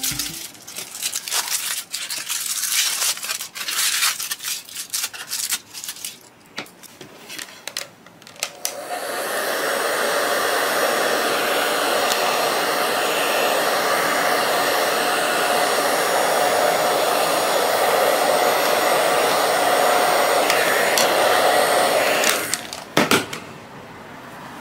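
Foil wrapper crinkling and crackling as it is peeled off a chocolate bar, then a hair dryer blowing steadily for about fourteen seconds, warming a knife blade so it cuts the chocolate neatly. The dryer cuts off near the end, followed by a couple of knocks.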